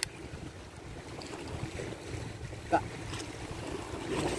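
Wind rushing over the microphone, a steady noise that swells slightly toward the end, with a sharp click at the start and another short sharp sound near three seconds in.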